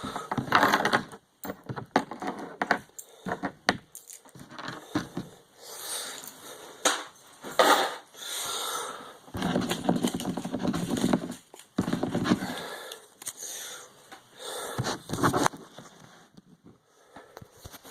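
Board game pieces being handled: paper money, cardboard and plastic rustling, with many sharp clicks and knocks and some longer rustles of about a second.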